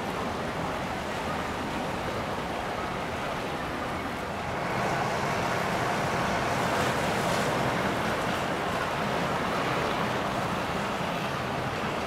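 Boat engine running amid steady rushing water and wind noise, growing a little louder about four and a half seconds in.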